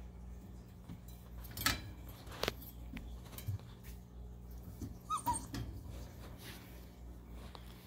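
Pomsky puppy chewing and licking playpen bars: scattered sharp clicks and knocks, with a short whimper about five seconds in.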